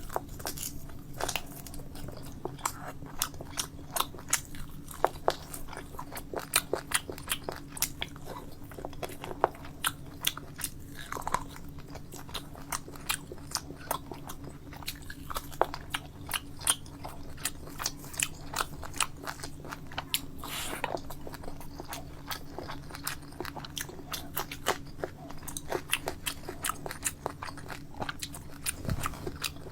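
A person chewing and biting food: a string of short, sharp, irregular mouth clicks and crunches, over a steady low hum.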